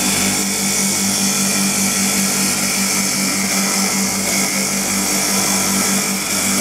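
Double-spindle CNC wood lathe running, turning two wooden blanks as its four-blade carriage works along them: a steady hiss of cutting over a rapidly pulsing motor hum.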